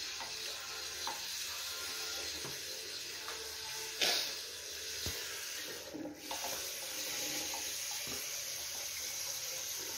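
Water running steadily from a bidet tap into its ceramic bowl as a toddler works the handle, with a single knock about four seconds in and a brief dip in the flow near six seconds.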